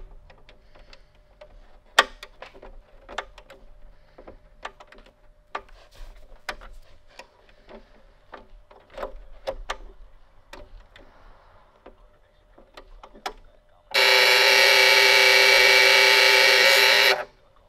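Setting knob of a 1951 GE 515F clock radio clicking irregularly as the clock hands are turned. About fourteen seconds in, the clock radio's alarm buzzer goes off, a loud steady buzz that lasts about three seconds and cuts off suddenly.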